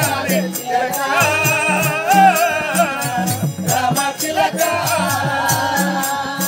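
A live folk song: a man singing through a microphone and PA, accompanied by a harmonium, a hand drum keeping a steady beat, and a jingling rattle-like percussion.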